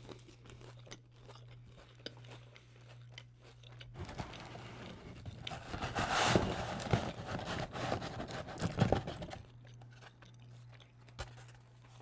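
Close-up chewing and crunching of a breaded chicken tender. There are soft mouth clicks at first, then louder, denser crunching from about four seconds in until nearly ten seconds.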